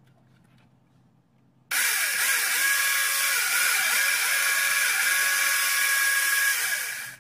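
Homemade electric chainsaw, a 775 DC motor driving the chain through a GT2 belt, running at speed: a loud, steady, high whine with hiss. It starts abruptly a little under two seconds in and stops just before the end, after a short near-silent stretch at the start.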